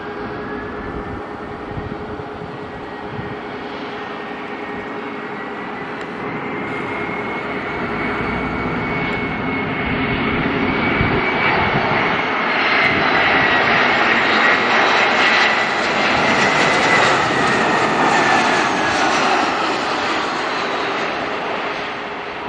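Twin-engine Airbus A320-family jet airliner on final approach, its engines whining as it flies in and passes. It grows louder toward the middle and eases off near the end, while a high whine slowly rises in pitch and then falls.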